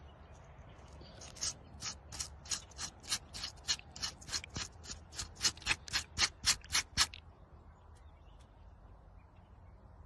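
A knife blade scraping along a cut aloe vera leaf in quick, even strokes, about four a second, getting louder, then stopping about seven seconds in.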